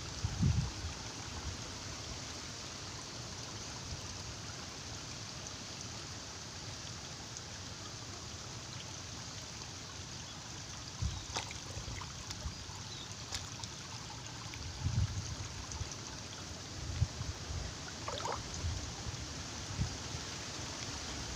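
Shallow stream water trickling and flowing steadily, with a few brief low bumps and small splashes as a hand works at an eel hole in the muddy bank.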